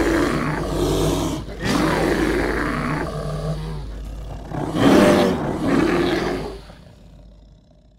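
Bear roaring, three long rough roars over a steady low drone, the last and loudest about five seconds in, then fading away.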